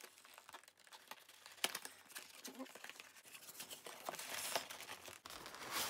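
Cardboard box being handled and its end flap prised open: faint, irregular scraping and rubbing of card with small clicks and taps.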